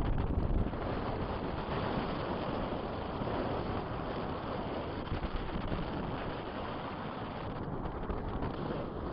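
Strong wind blowing over the microphone: a steady rush of noise, with a heavier low gust right at the start.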